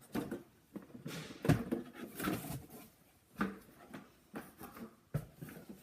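Scattered rustles and knocks of household things being shifted about as someone rummages through a pile of stuff, searching for a hidden toy.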